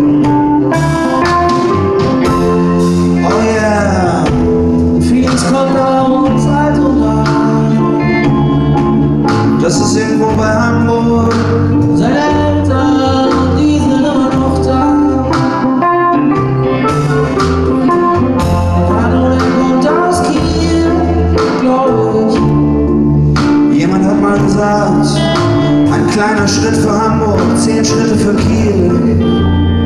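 A band playing a song: electric guitar, bass, drums and a Nord keyboard, with a man singing over a steady beat.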